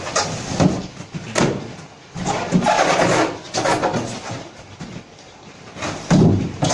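Polystyrene foam boxes being handled: lids pushed and rubbed onto the boxes, with scraping and several sharp knocks as the foam boxes are moved and set down.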